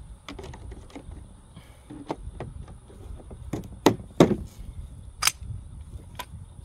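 Irregular clicks and knocks of small items being handled and set down into a container, with the loudest knocks about four seconds in and another about a second later.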